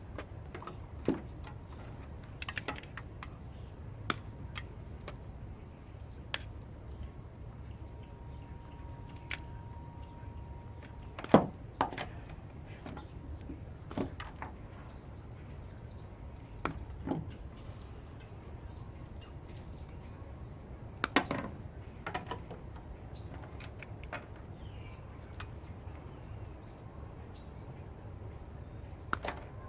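Scattered clicks, clinks and knocks of hand tools and metal parts as a Razor scooter is taken apart, the loudest knocks about 11 and 21 seconds in. Birds chirp in the background through the middle.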